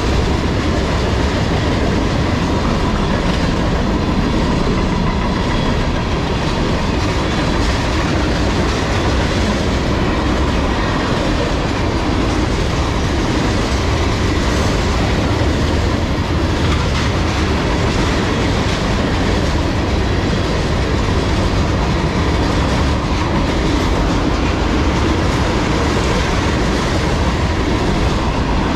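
Freight train of tank cars rolling past at close range: a steady rumble of steel wheels on the rails that holds an even level throughout.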